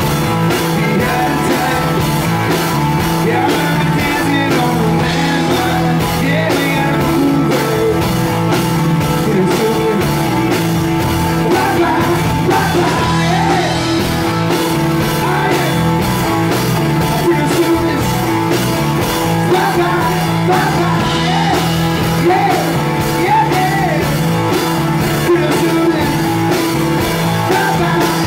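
Live rock music: electric guitar over a steady beat, with a man singing at times.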